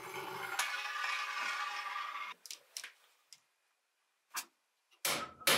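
A rough scraping noise for about the first two seconds, which then stops. A small hammer then taps metal in a bench vise: a few light ticks, then two sharp strikes near the end. The second strike is the loudest and rings briefly.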